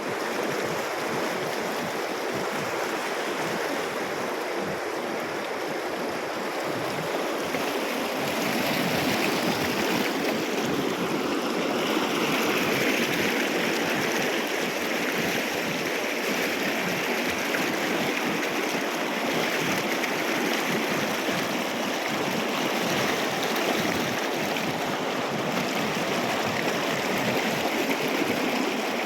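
Kunhar River's fast mountain water rushing over rocks: a steady, dense rush that does not let up.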